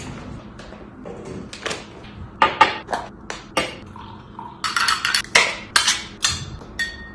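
Dishes and cutlery clinking and clattering in quick, irregular sharp strikes, with a busy run about five seconds in.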